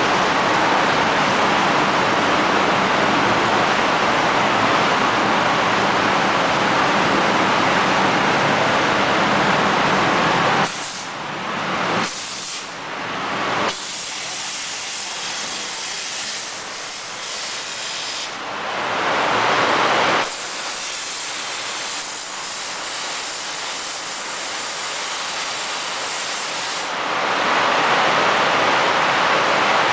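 Automatic car wash machine running: a loud, steady rush of water spray and brushes scrubbing the car. The noise drops suddenly about a third of the way in, then swells back twice, briefly just before two-thirds of the way and again near the end.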